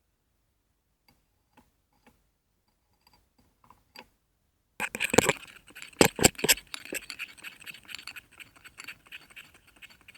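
Water running from a tap as hands are washed under it, starting suddenly about halfway through, with a few sharp knocks soon after it starts. Before that, only a few faint clicks.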